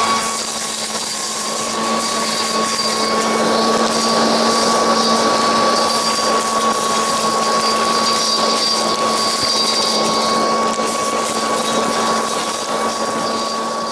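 Black and Decker LeafHog electric blower-vac, modified to draw through a narrow 2.5-inch Shop-Vac hose, running loud and steady with a high motor whine and rushing air as it sucks acorns up out of the grass.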